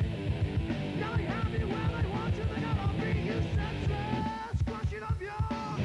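Rock music with a fast, steady drum beat, guitars and a singing voice.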